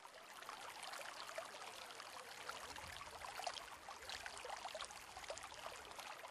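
Faint trickling, running water: an even wash of water noise with small splashes and drips scattered through it.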